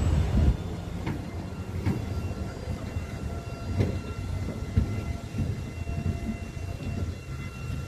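Street traffic: a passing vehicle fades away in the first half-second, leaving a low rumble of traffic with a few soft knocks.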